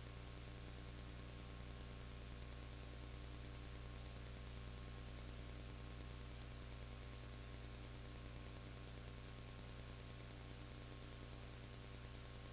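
Steady electrical hum with a constant hiss from the recording itself; no game sounds stand out.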